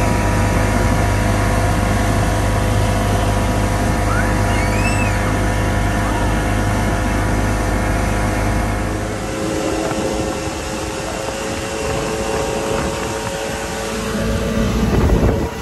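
Mercury outboard motor running at speed as the boat planes, a steady engine drone over rushing water and wake spray. About nine seconds in, the deep low rumble drops away and the sound thins while the engine tones carry on.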